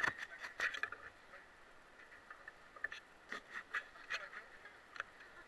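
Camera handling noise: a sharp knock at the start, then scattered lighter knocks and clicks as the camera is moved.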